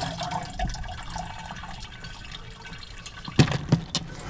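Water dripping and trickling as wet tumbled rocks are handled in a plastic bucket among plastic spacers. Near the end come three sharp clacks of stone on stone, the first the loudest.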